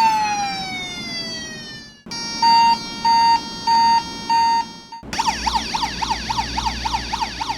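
Toy ambulance's electronic siren sound chip cycling through siren patterns. A wailing tone falls away, then switches abruptly to a steady on-off beeping siren, then about five seconds in to a fast warbling yelp.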